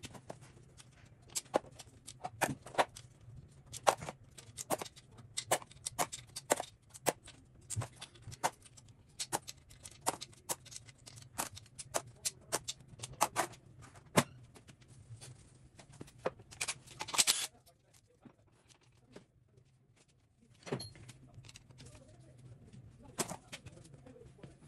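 Metal hand tools and engine parts clinking and knocking irregularly as an engine is taken apart, over a steady low hum. A short rasping burst comes about two-thirds of the way in.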